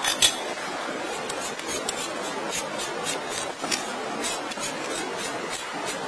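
Small metal parts of an air-rifle regulator valve clicking and clinking as they are handled and pressed together, with a few sharper clicks at the start, over a steady hiss.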